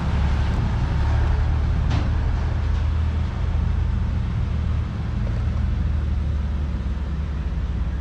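Steady low outdoor rumble with a hiss above it, and a single faint click about two seconds in.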